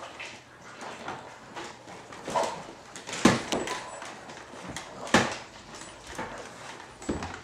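Plastic baby activity toy knocking and clattering against a wooden floor as a toddler tumbles over with it, with two sharp knocks about three and five seconds in.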